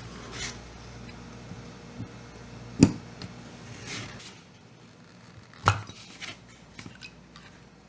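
Small metal and plastic clicks of outboard trim motor parts being handled while the new brushes are fitted into the motor housing, with two sharper clicks about three and six seconds in.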